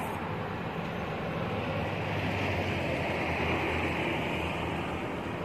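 Steady low engine rumble with a hiss over it, swelling slightly a couple of seconds in and easing near the end.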